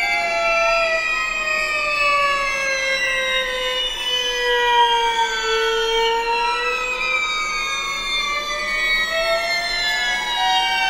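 Experimental string-quartet music, sound-edited: several held tones glide slowly up and down in pitch and cross one another, with no beat.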